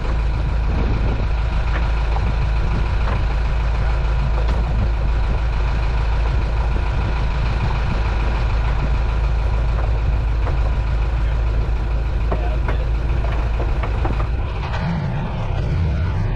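Towboat's engine running steadily at idle, a low hum with a steady drone above it; about fourteen seconds in its sound shifts as the boat gets underway with the tow.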